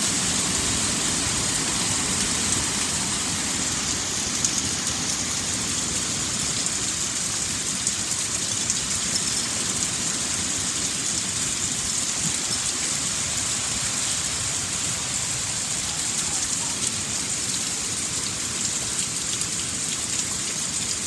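Steady rain falling: an even hiss flecked with the small ticks of single drops.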